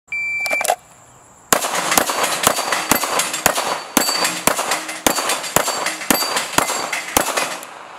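A shot-timer beep, then rapid pistol fire from an STI Staccato P: about a dozen shots at roughly two a second, steel plates ringing as they are hit. The run from beep to last shot is about seven seconds.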